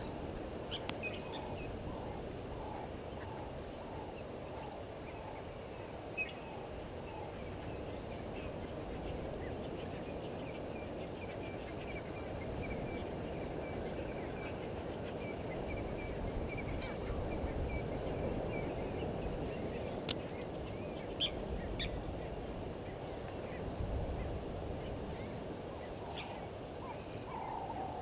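Wild birds calling: a run of short repeated notes at the start and again near the end, and a thin, quick series of high notes through the middle, over a steady background rush. A sharp click about two-thirds of the way through.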